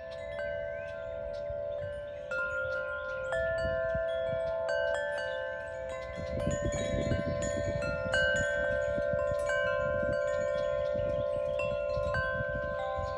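Wind chimes ringing, struck at irregular moments, several pitches sounding together and ringing on. A low rumbling noise runs underneath and gets stronger from about halfway.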